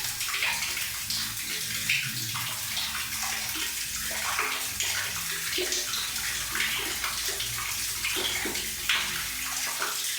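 Water running and splashing steadily, a continuous pouring flow with small bright splashes throughout.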